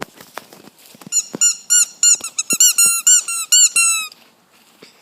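Squeaky toy squeezed over and over: a quick run of about fourteen loud, high squeaks, some four or five a second, that stops suddenly about four seconds in.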